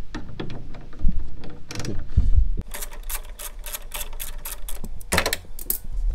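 Ratchet wrench on a long extension clicking in quick runs as a 10 mm fastener inside the fender is worked loose, with a few knocks of the tool against the car's body.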